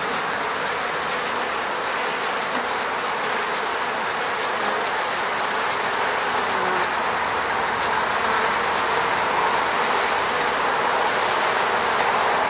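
Honey bees buzzing around their hive: a steady hum of many bees at once.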